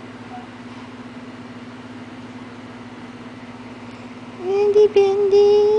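Steady low hum, then about four seconds in a newborn baby's high, drawn-out whimpering cry, held nearly level with a brief catch, lasting about a second and a half.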